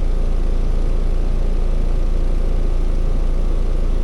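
Central air-conditioning condensing unit running steadily in cooling mode, compressor and condenser fan giving an even hum.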